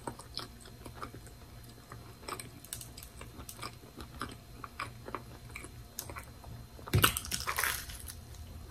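Close-up chewing and mouth sounds of a person eating a bacon and egg sandwich on toast, with many small wet clicks. About seven seconds in comes a louder crunching bite into the sandwich.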